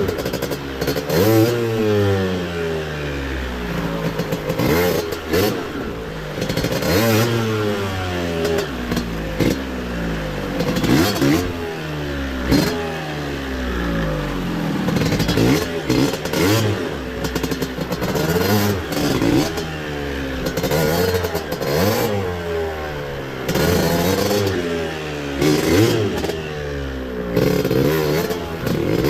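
Yamaha DT125 two-stroke single-cylinder enduro motorcycle engine revving up and down over and over, the throttle opened and closed every second or two as the bike picks its way through rough ground.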